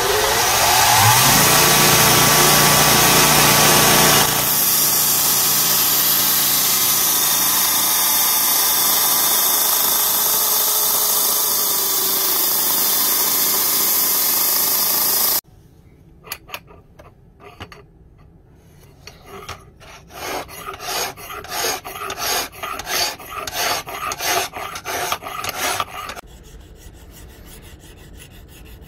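A bench grinder with a sanding-belt attachment spins up with a rising whine, then runs steadily as a 5160 spring-steel blade is ground on the belt. About halfway through the sound cuts off, and a hand file scrapes along the blade in even strokes about two a second, stopping a few seconds before the end.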